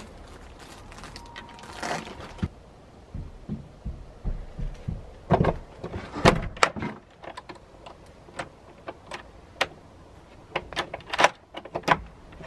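Interior door being handled: a run of scattered sharp clicks and knocks from the latch and lever handle, the loudest about six and eleven seconds in.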